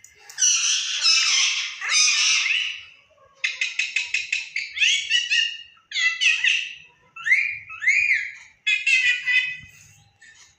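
A pet parrot calling: harsh squawks for about the first three seconds, then a quick run of clicking chatter and a string of short rising whistled calls.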